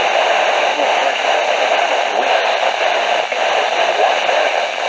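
Radio receiver hissing with loud, steady static on a weak signal, drowning out the broadcast voice reading the severe thunderstorm watch, which can barely be heard beneath the noise.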